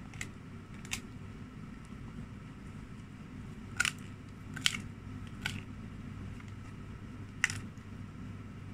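A husky chewing a dried lamb's ear with fur on, its teeth cracking the tough ear in about six sharp, irregular crunches, the loudest a little before the middle and near the end, over a steady low hum.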